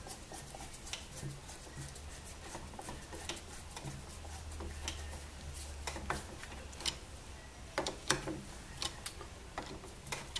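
A Phillips screwdriver tightening small screws into the top of a wooden miniSpinner case: irregular faint clicks and ticks of the bit turning and seating, over a low steady hum.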